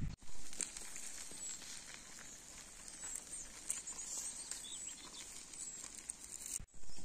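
Fish grilling over charcoal: a faint sizzle with scattered small crackles and pops, and thin high chirps over it.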